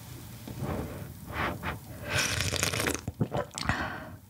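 Close-miked mouth sounds of sipping hot whelk-soup broth from a wooden spoon: a breathy slurp about halfway in, then several short wet clicks near the end.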